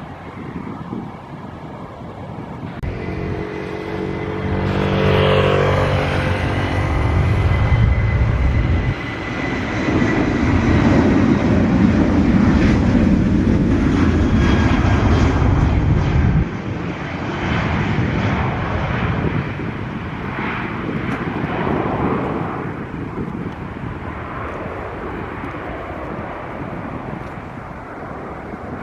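Jet airliner passing close: a whining engine tone slides down in pitch as it goes by, followed by a loud low engine rumble that drops away suddenly and leaves a fading noisy wash.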